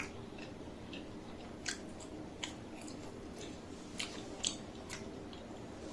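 Close-miked chewing: about six sharp, wet mouth clicks and smacks spread unevenly, over a steady low background noise.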